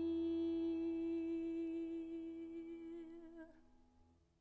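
The final held note of a sung theatre song: one steady, sustained tone with rich overtones that wavers slightly and fades out about three and a half seconds in.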